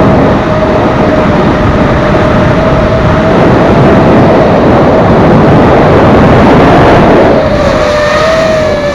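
FPV racing quadcopter's motors and propellers whining at a steady pitch over a loud rushing noise. About seven and a half seconds in, the rush eases and the whine wavers up and down as the throttle changes.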